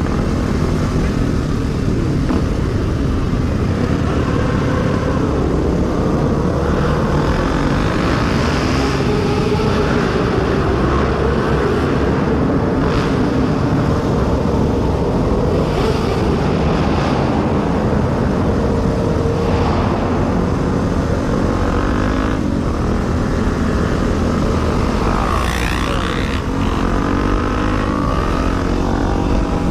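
Kawasaki KLX250S's single-cylinder four-stroke engine running at city cruising speed, its pitch rising and falling, under heavy wind noise on the helmet-camera microphone. Other motorcycles in the group add their engines around it.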